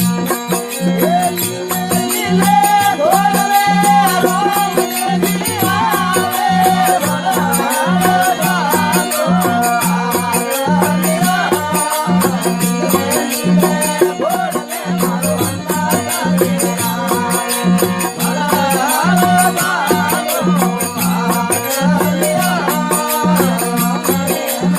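Marwari (Rajasthani) folk devotional music: a wavering melody over a repeating low beat.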